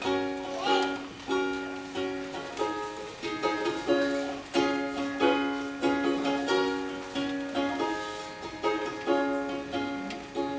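Solo ukulele playing a song's instrumental introduction: strummed chords, each struck sharply and left to ring, in a steady rhythm.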